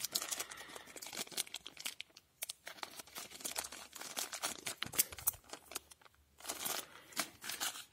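Small clear plastic bags of plastic game tokens crinkling and rustling as they are handled, in irregular crackles with a couple of short pauses.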